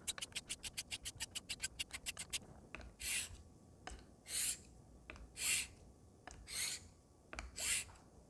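Straight razor blade stroked across an Atoma 600 diamond plate: a quick run of short rasping strokes, then slower single X-strokes about a second apart, each a hiss, finishing the bevel.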